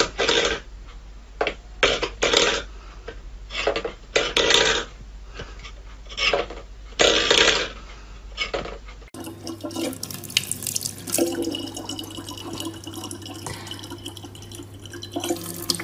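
A steel pet bowl scraped and knocked on a wooden floor in a run of short clattering bursts, about a dozen over nine seconds. Then a thin stream of water from a tap runs steadily into a plastic bottle.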